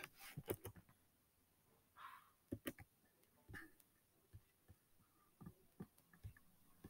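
Near silence: room tone with a dozen or so faint, scattered clicks and ticks and a soft hiss about two seconds in.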